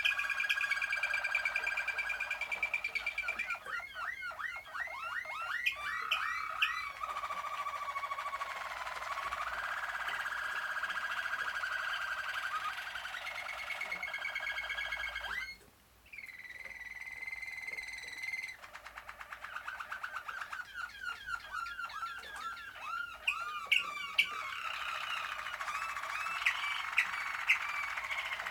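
Malinois (Waterslager) canaries singing a continuous rolling song. Long steady trills alternate with runs of quick rising-and-falling notes, with a short break a little past halfway.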